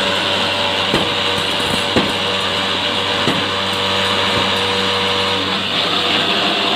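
Hydraulic hollow concrete block machine running with a steady motor hum, with a few sharp metal knocks in the first half.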